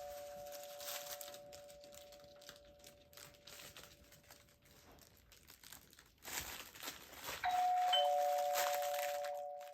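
Two-note ding-dong doorbell chime played as a sound effect: one chime's two notes fade out over the first few seconds, then about seven and a half seconds in a new chime strikes its higher note, with the lower note following half a second later, both ringing on. A short rustling, crinkling noise comes just before the second chime.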